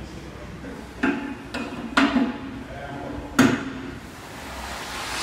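Three sharp knocks with a short ringing tail, about a second apart, as a steel push sled is driven across a wooden gym floor; the second and third are the loudest.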